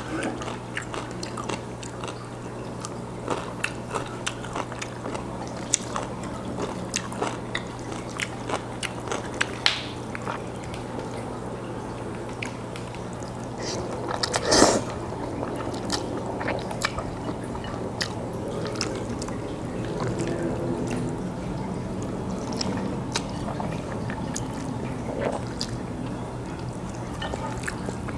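Close-miked wet mouth sounds of a man eating jjajangmyeon (Korean black bean noodles): chewing with many small clicks and smacks, and a louder burst about halfway through. A steady low hum runs underneath.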